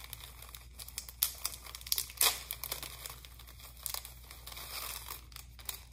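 Small jewelry packaging crinkling and rustling in the hands as a necklace is unwrapped, a run of irregular crackles, loudest about two seconds in.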